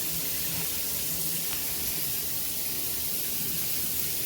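Water spraying steadily from a dual shower head, a constant hiss.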